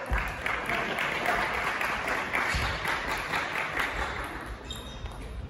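Spectators clapping at the end of a table tennis rally. The clapping starts at once and fades out about four and a half seconds in.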